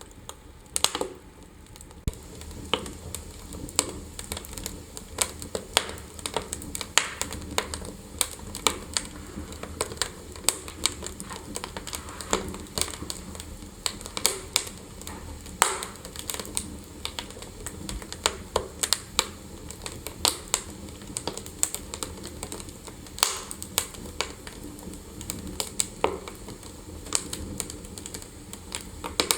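Wood fire burning in a fireplace, crackling with irregular sharp pops over a low steady rush.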